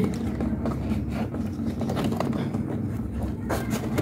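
Small plastic clicks and scrapes as hands work a locking tab loose on an air cooler's swing-motor louvre assembly, over a steady low hum.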